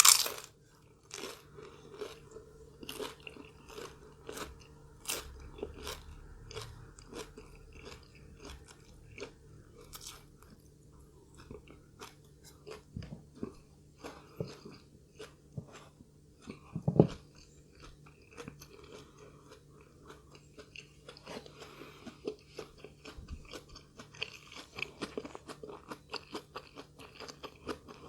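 Close-miked chewing and biting of crunchy fried food: many sharp, irregular crunches, with a loud bite at the start and another strong one a little past halfway.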